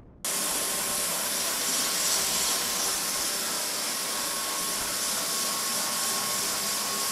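Single-disc rotary floor machine grinding and polishing a terrazzo floor with water: a steady, loud hiss with a faint hum running through it, cutting in suddenly just after the start.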